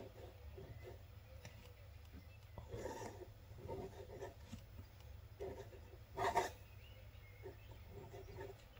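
Faint, irregular scratching of a Noodler's Konrad fountain pen's flexible steel nib dragged across paper in slow calligraphy strokes under pressure, with a louder short sound about six seconds in. A low steady hum runs underneath.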